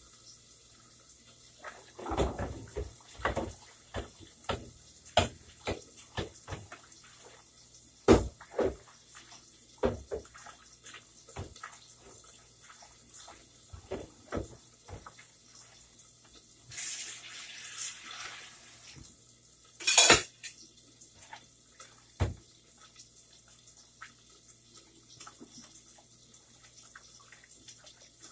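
Kitchen clatter: pots, dishes and utensils knocking and clinking on the counter in a string of separate knocks. About two-thirds through, a tap runs briefly, followed by the loudest moment, a short burst of noise.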